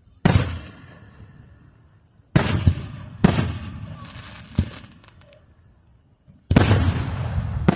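Fireworks exploding: five sharp bangs a second or so apart, each dying away slowly, with the last a longer, sustained blast lasting over a second near the end.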